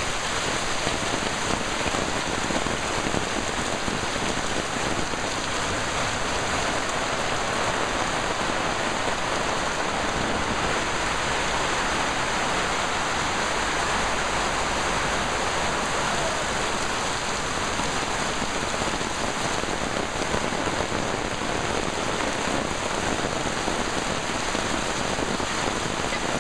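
Heavy tropical rain pouring down steadily, a dense, even hiss of rain hitting surfaces.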